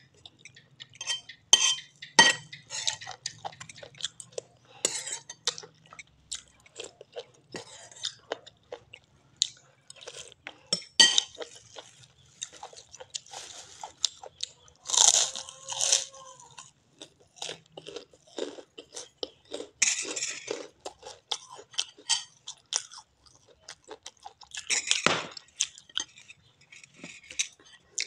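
Close-up crunching and chewing of a crispy fried cracker (kerupuk) eaten with a bowl of lontong sayur: dense, irregular crunches throughout.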